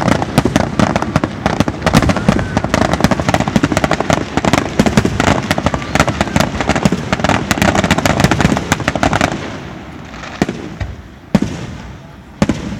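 Fireworks display: a dense barrage of rapid crackling and bangs for most of the time, then about nine seconds in it thins out to a few separate booms with echoing rumble.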